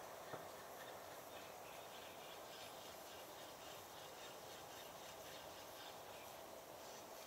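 Near silence: faint riverside ambience with distant bird calls, and one soft click shortly after the start.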